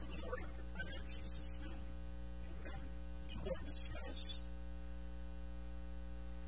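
Steady electrical mains hum with a stack of overtones, with a few faint, brief, irregular sounds over it.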